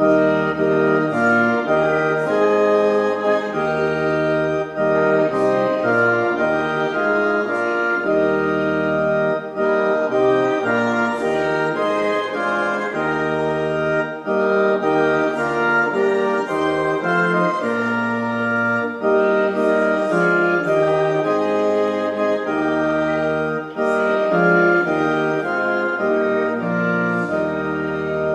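Church organ playing a hymn in held chords over a deep pedal bass, with a short break between phrases about every five seconds.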